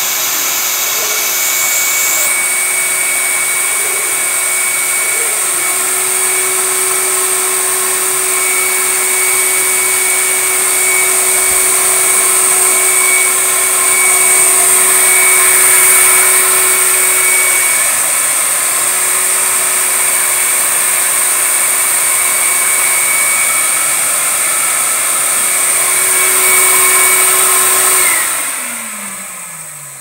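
Canister vacuum cleaner motor running steadily with a high whine, its exhaust blowing air upward. About two seconds before the end it winds down, its pitch falling as the sound fades.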